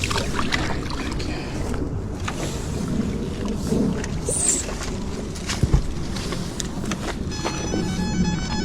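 A steady low rumble of outdoor noise with scattered knocks and clicks of handling. About seven seconds in, an electronic beeping tone starts and keeps going.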